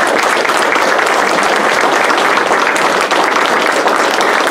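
An audience applauding, a steady crowd of hands clapping at the end of a talk.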